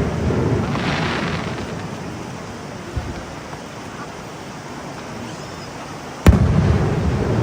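Aerial fireworks shells bursting. The echoing rumble of one burst dies away with a faint crackle about a second in, a small pop comes about three seconds in, and a loud boom about six seconds in rolls on.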